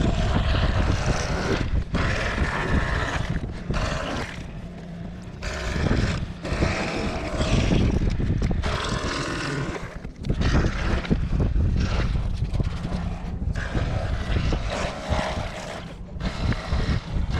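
Boat motor running under way, a steady low rumble with gusty wind noise on the microphone rising and falling over it.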